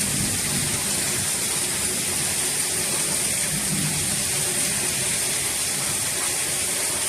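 Heavy rain pouring down hard, a steady, even hiss of water with splashing and runoff.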